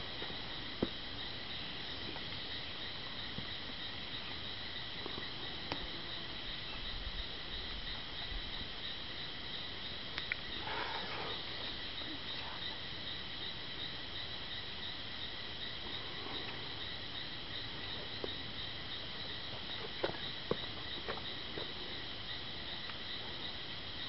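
Steady high-pitched chorus of insects, even and unbroken throughout, with a few faint clicks and a brief soft rustle-like sound in the middle.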